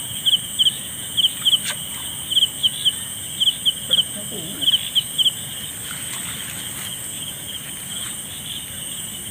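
Night insects calling: a cricket chirping in quick pairs of short notes, about one pair a second, stopping a little past halfway, over a steady high-pitched insect drone.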